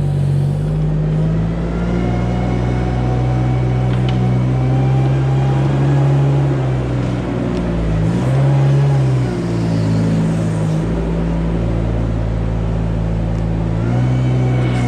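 A vehicle engine running steadily, its pitch shifting a little, with a brief rise and fall in revs about eight seconds in.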